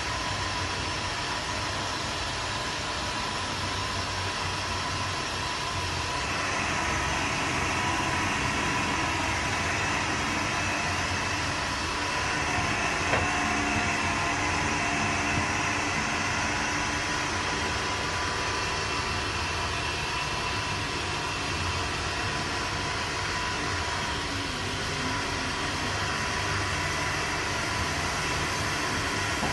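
Tower crane cab interior: a steady mechanical hum with a whine from the crane's drive as it slews, the higher whine coming up about six seconds in and easing off toward the end. One short click near the middle.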